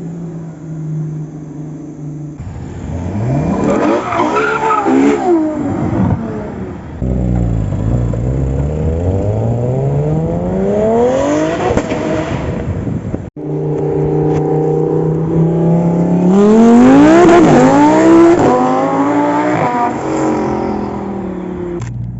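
High-performance car engines: one idles, then accelerates hard with revs climbing through several gear changes and passes by. After an abrupt cut about halfway through, another idles and then accelerates hard, rising and falling in pitch; this is the loudest part.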